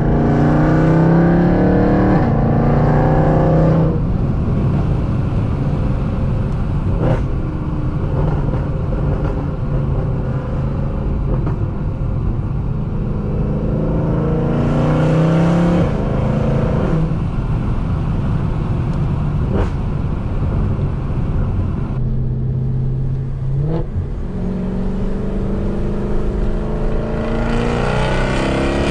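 Mercedes C63 AMG V8 on catless long-tube headers, X-pipe and resonator delete, pulling through low revs several times, the pitch rising with each pull and easing back between them, with a few sharp cracks in between.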